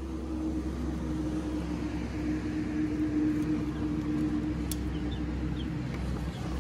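A motor running with a steady hum, a held mid-low pitch over a low rumble.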